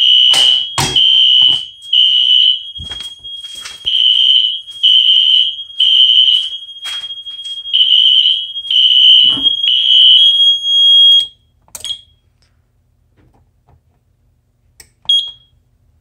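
Fire alarm system sounding after a Simplex 4251-21 pull station is pulled: a Wheelock NS horn strobe's high-pitched electronic horn pulsing about once a second over a steady high tone. It cuts off suddenly about eleven seconds in as the system is reset, followed by a click and a short beep from the panel.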